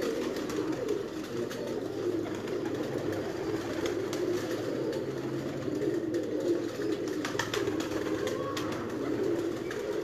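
A loft full of domestic pigeons cooing continuously, many birds' coos overlapping into a steady low murmur.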